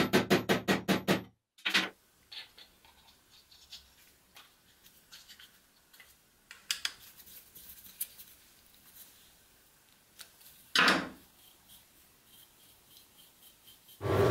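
Background music stops about a second in; then faint metal clicks, taps and scrapes of small hardware being handled and a screw turned with a screwdriver in an aluminium motor bracket, with one louder scrape near eleven seconds in. A motor starts running right at the very end.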